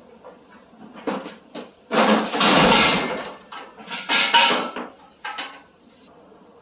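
A man tripping over a table saw and falling to the floor. A few knocks lead into a loud crash and clatter about two seconds in, then a second burst of clattering about four seconds in, with a couple of knocks after it.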